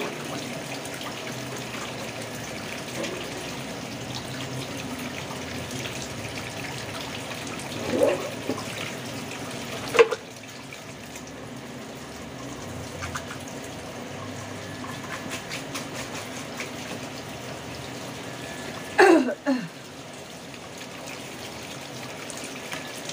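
Tap water running into a kitchen sink while vegetables are washed and swished around in it. A sharp knock comes about ten seconds in, and two short sounds falling in pitch come about eight and nineteen seconds in; the later one is the loudest.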